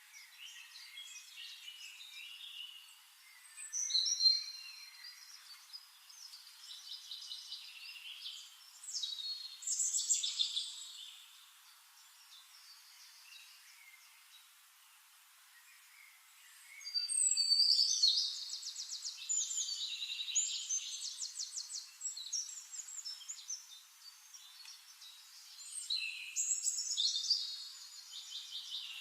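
Several songbirds singing in bursts of varied chirps and rapid trills, over a faint hiss of background noise.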